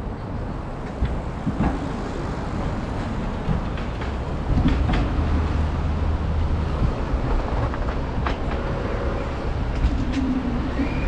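A train running past with a steady low rumble that grows louder about halfway through, with a few sharp clacks.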